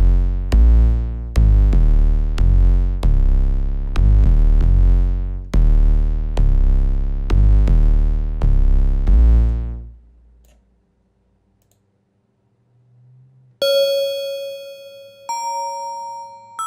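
Sampled 808 bass patch from a Kontakt instrument library played as a run of about a dozen deep, booming notes with sharp attacks, each decaying before the next. After a pause of about three seconds, two ringing bell-like synth notes sound, the second higher than the first.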